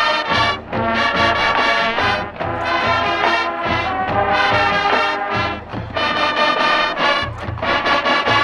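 Full marching band playing, led by massed brass including sousaphones, in loud, short repeated chords punctuated by sharp hits.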